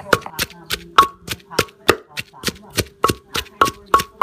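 Wooden pestle pounding garlic and chillies in a clay mortar, a steady beat of about three strikes a second.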